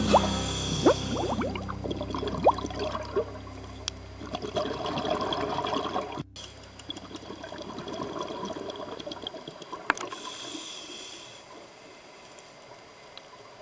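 Underwater sound of a scuba diver's exhaled bubbles gurgling and trickling, with quick rising bubble chirps in the first few seconds. A steady low hum lies beneath until about two-thirds of the way through, and there is a split-second dropout near the middle.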